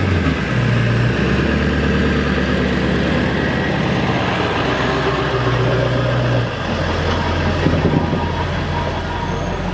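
Pickup truck towing a trailer, its engine running with a steady low drone and road noise. The hum shifts and dips slightly about six and a half seconds in.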